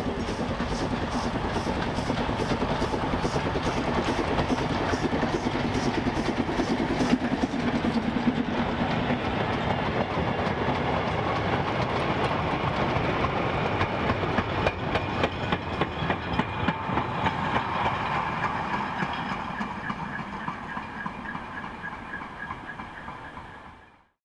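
Steam locomotive hauling a goods train past, its exhaust beating steadily, then the short goods wagons rolling by with a clickety-clack of wheels over rail joints. The sound fades and cuts off near the end.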